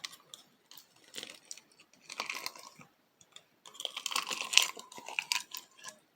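Faint, irregular crunching and clicking noises in short scattered clusters, with no music or voice.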